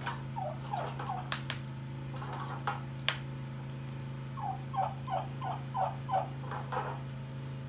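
White domestic turkey calling: a few short falling calls early, then a quick run of about seven in a row from about four and a half seconds in. Sharp crackles from the open wood fire and a steady low hum sit underneath.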